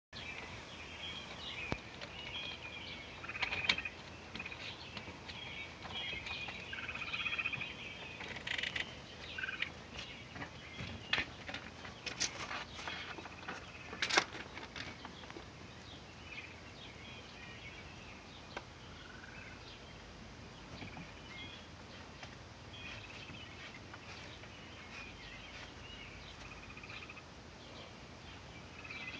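Songbirds chirping in a predawn chorus, with a few sharp knocks and scrapes as a raccoon climbs and presses against the window glass, the loudest about fourteen seconds in.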